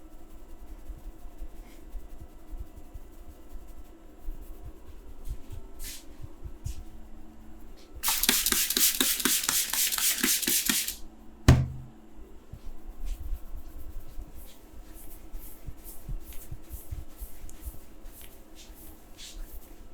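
Hand massage sounds: about three seconds of loud, fast rubbing strokes, then one sharp loud impact, followed by lighter rhythmic rubbing strokes.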